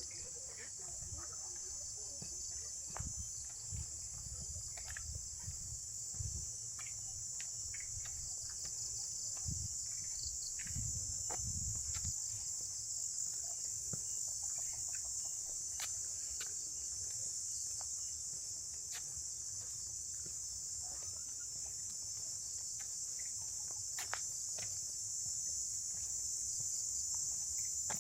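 Dense insect chorus at dusk, a steady high-pitched buzz with no break, over a low rumble and a few scattered light clicks.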